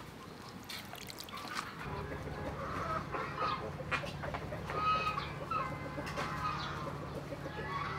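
Chickens clucking, a run of short calls, over a steady low hum that begins about two seconds in.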